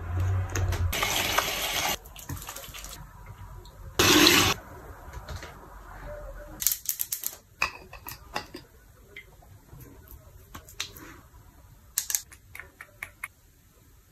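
Water running at a sink, with a short loud gush about four seconds in, then scattered light clicks and knocks of small items being handled.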